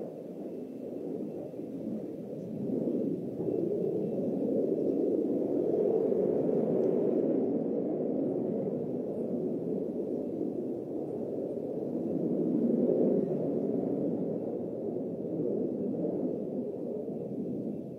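Low, dull jet noise from a JF-17 Thunder's single Klimov RD-93 turbofan in flight. It swells twice and eases off near the end.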